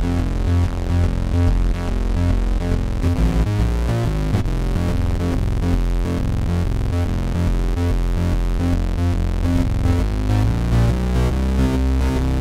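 Studiologic Sledge 2.0 synthesizer played live: a fast, busy run of notes over a deep bass.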